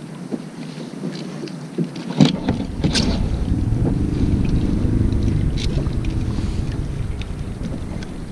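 Wind buffeting the microphone: a low rumble that swells about two seconds in and slowly eases off. A few sharp knocks and clicks come in the first three seconds, the loudest just before the rumble sets in.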